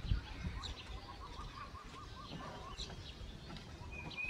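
Birds chirping in trees: one gives a quick run of about nine short rising notes lasting just over a second, with other thin, high chirps around it and a short clear whistle near the end. A brief low thump comes right at the start.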